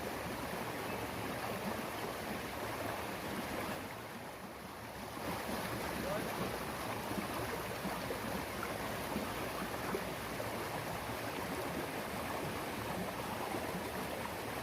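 Steady rush of flowing river water, dipping briefly about four seconds in.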